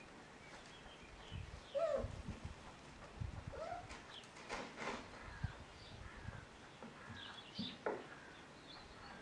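Bouvier des Flandres puppies play-fighting, giving a few short, faint yips, with small birds chirping in the background and a few low thumps.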